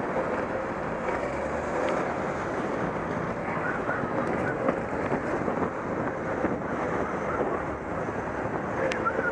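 Steady rush of wind on the microphone of a moving bicycle, with city street traffic running underneath.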